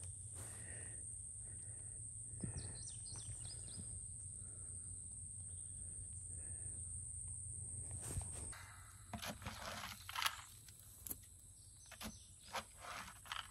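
A steady faint hum with a thin high whine, then, about two-thirds of the way in, scattered footsteps, rustles and light knocks of someone moving about and handling a bucket inside a wire hog trap.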